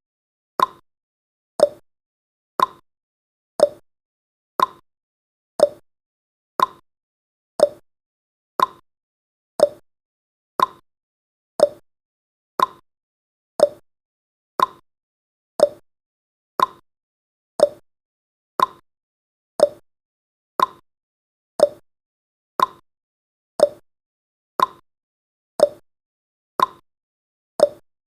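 Countdown timer's ticking sound effect: one short, crisp tick every second, perfectly regular, each with a brief ring.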